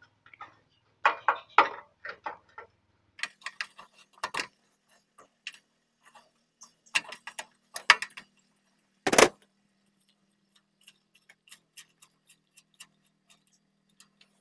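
Metal clicks and knocks of a wrench working the 15 mm bolt that holds the oil-level sensor on a Lifan 6.5 hp engine. There is a sharp knock a little past the middle, then a run of light, even ticks, about three a second, near the end.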